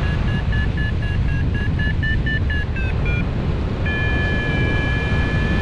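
Variometer beeping fast, about five short beeps a second, rising slightly in pitch, the sign of climbing in lift. After a short break it holds one steady tone near the end. A steady rush of wind over the microphone runs underneath.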